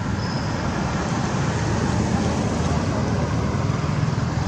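Steady low rumble of a motor vehicle engine running, with traffic-like background noise.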